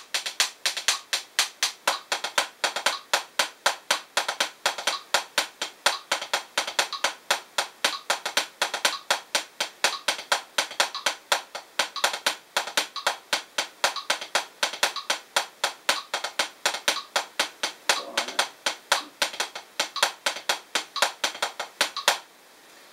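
Los Cabos 7A hickory drumsticks playing the drag paradiddle #2 rudiment on a Drumeo P4 practice pad: an even stream of sharp taps, several a second, with quick grace-note drags, stopping abruptly near the end.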